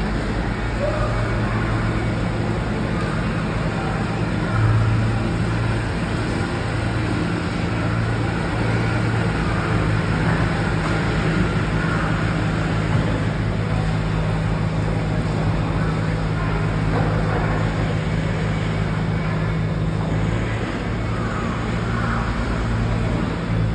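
Steady low hum of engines running, unchanging throughout.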